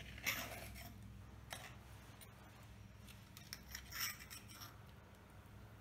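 Utensils clinking and tapping against dishes. There is a sharp clink with a short ring near the start, another tap about a second later, and a quick run of clinks in the second half.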